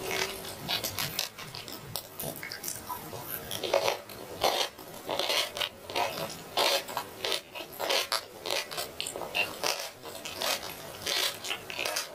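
Someone chewing roast chicken: irregular wet smacks and clicks of the mouth, several a second.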